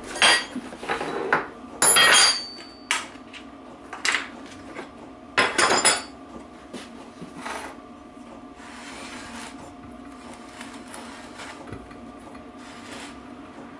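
Metal parts and tools clinking and clattering on a workbench while being handled, with a run of sharp knocks over the first six seconds, then quieter handling over a faint steady hum.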